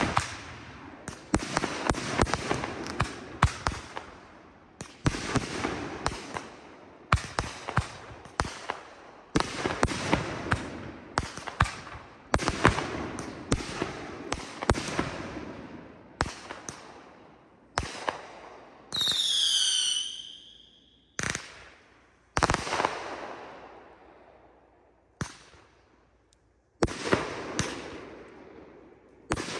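Consumer aerial fireworks going off: a rapid string of sharp bangs from bursting shells, each trailing off. A falling whistle lasting about a second comes about two-thirds through, and after it the bangs come singly with gaps between them.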